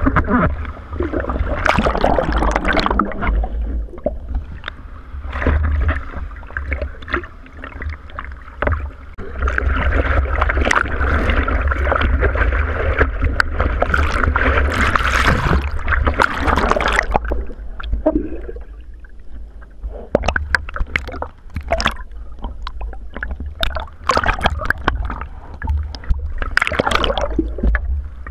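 Seawater splashing and sloshing around a surfboard as a surfer paddles through the surf, with irregular splashes from his arm strokes over a constant low rumble of water and wind on a board-mounted GoPro. Near the end the camera goes under the water.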